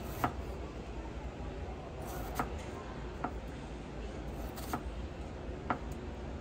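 Chef's knife slicing through an onion and knocking on a wooden cutting board, five separate strokes about a second apart, over a steady low background rumble.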